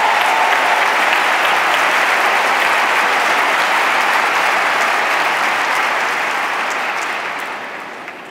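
Large audience applauding, a dense steady clatter of many hands that dies away over the last two seconds or so.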